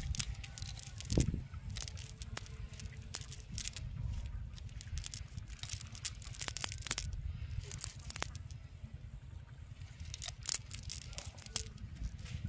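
A wet cast net being shaken and worked by hand on grassy mud: it rustles and crackles, with scattered sharp clicks and patters as the small catch tumbles out of the mesh. A steady low rumble runs underneath.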